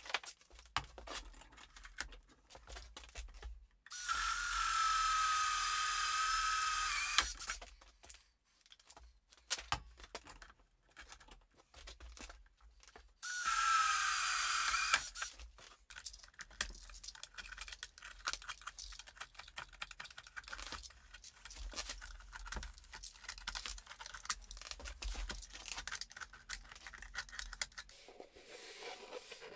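Makita cordless drill spinning a hole saw through a PVC pipe: two runs of steady motor whine, the first about three seconds long and the second about two, with knocks and rattles of handling between them.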